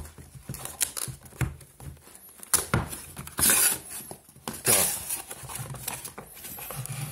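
Cardboard packaging being handled and opened: flaps folded and slid out, with irregular sharp clicks and two louder swishes of cardboard sliding against cardboard about three and a half and five seconds in.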